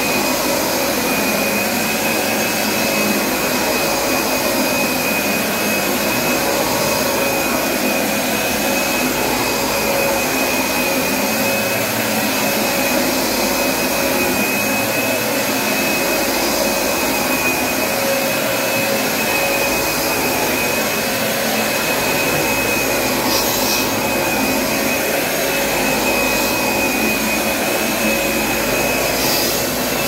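Hoover SmartWash Pet carpet cleaner running steadily, a constant rush of suction with a steady high whine from its motor.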